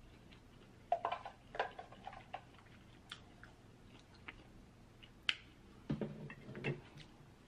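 A few soft, scattered clicks and taps of a serving spoon as diced tomato and green onion are spooned onto a dish of pasta, followed near the end by a short, fuller patch of scraping and shuffling.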